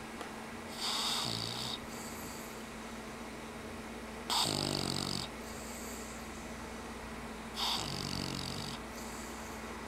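English bulldog snoring in her sleep: three snores, each about a second long and about three seconds apart, each a hissing breath with a low, pitched snore under it.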